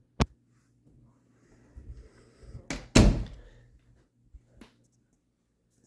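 An interior door: a latch click, then the door swung shut with a heavy thump about three seconds in, followed by a couple of small clicks.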